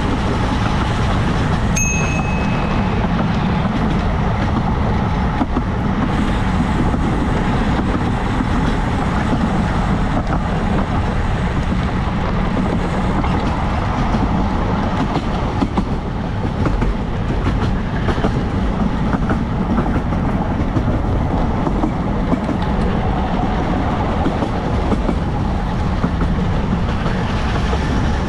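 Steady wind buffeting and road rumble from riding a bicycle along a road, with one short high tone about two seconds in.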